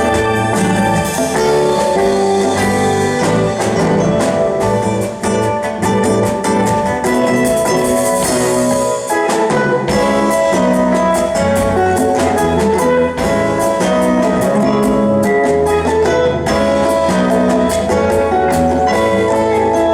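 A live band playing an instrumental piece: a drum kit keeps a steady beat under bass and sustained guitar and keyboard lines.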